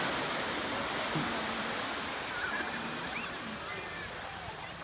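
Ocean surf washing on the shore, the hiss of a wave slowly fading away, with a few faint high chirps over it.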